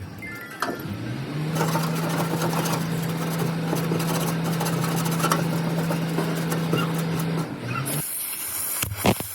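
A motor spins up about a second in, runs at a steady hum with a rough grinding noise over it, and winds down near the end.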